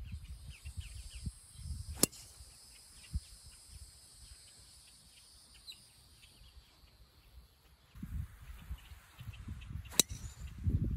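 Two golf tee shots: a club head striking the ball with a sharp crack about two seconds in, and a second strike near the end.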